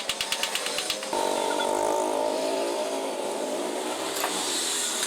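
Vespa Super 150's two-stroke single-cylinder engine firing in a rapid, even beat of pops. About a second in it smooths into a steady run.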